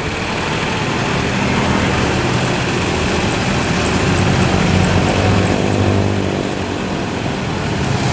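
Diesel dump truck engine running, revved harder to drive the hydraulic hoist as the loaded tipper bed lifts. The engine hum rises and strengthens in the middle, then eases a little near the end.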